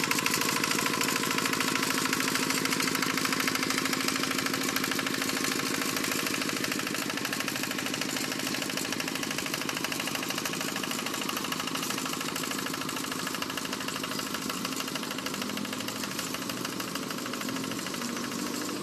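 Tractor engine running steadily while ploughing a flooded rice paddy, slowly growing fainter.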